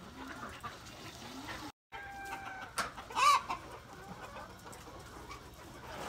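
Chickens clucking in their pens, with one loud squawking call about three seconds in.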